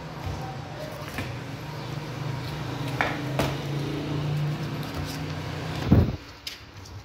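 Boning knife cutting lamb meat on a wooden cutting board, with a couple of sharp taps of the blade on the board and a heavier thump about six seconds in. A steady machine hum underneath drops away just after the thump.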